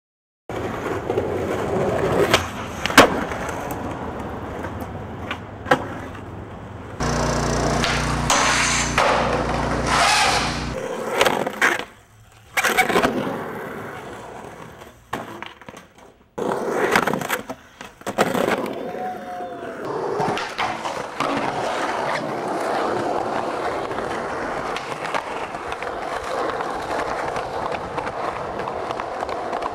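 Skateboard wheels rolling on concrete, with sharp clacks of the board popping and landing, across several short clips. A steady low rumble runs for a few seconds about a third of the way in.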